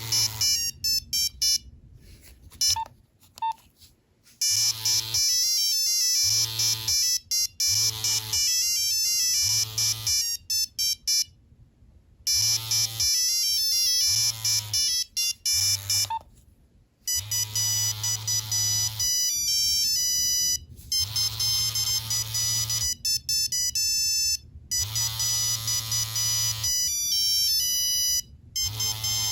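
Nokia 3390 mobile phone playing its built-in monophonic ringtones: beeping single-note melodies in quick steps, one note at a time, with a low buzz under each phrase. Playback stops briefly a few times as the tunes change.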